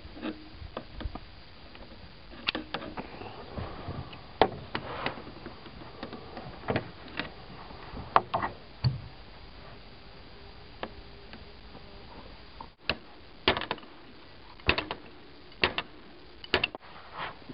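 Irregular metal clicks, clinks and scrapes of locking pliers working at the axle of a wheelchair's front caster wheel, on the caster's bearing, which the owner judges badly worn. A few sharper knocks stand out among the lighter ticks.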